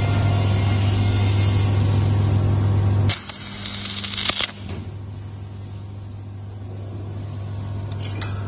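Arc stud welder firing a headed shear stud onto a steel plate: a steady low electrical hum, then about three seconds in a crackling, hissing burst of the welding arc lasting about a second and a half, followed by a quieter hum.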